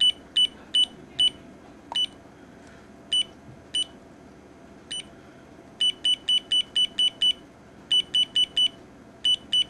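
Cube LED alarm clock's built-in beeper giving one short, high beep for each button press as the year setting is stepped up. The beeps come singly and unevenly through the first half, then in quick runs of about five a second.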